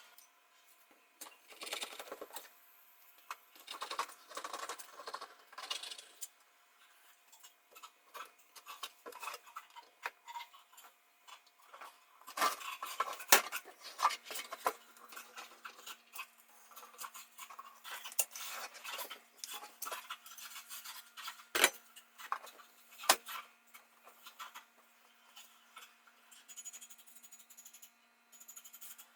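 Hand work with tools and hard objects: irregular scraping, rubbing and clicking, with a few sharp knocks in the middle and later on, and a faint steady hum starting about halfway through.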